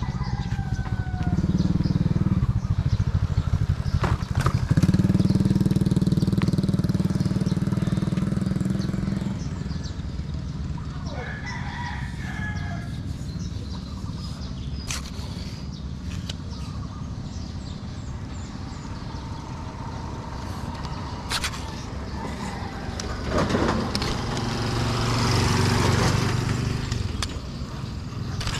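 A rooster crowing once, about twelve seconds in, over a low engine hum that swells twice, loudest in the first several seconds and again near the end, like a motor passing.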